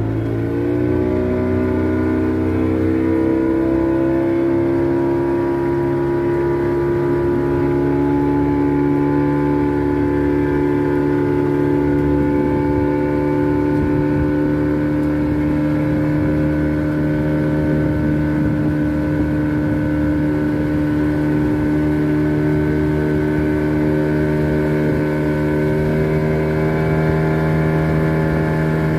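Fishing boat's engine speeding up over the first second or two, then running steadily at a constant pitch.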